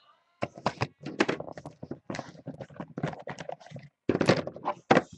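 Cardboard Topps Museum Collection card boxes being handled and moved: a quick run of taps, knocks and light thunks, loudest near the end.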